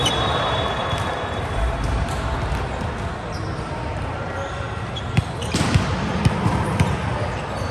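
Volleyball being hit and bouncing on an indoor court: a run of sharp smacks from about five to seven seconds in, over steady background noise of the hall.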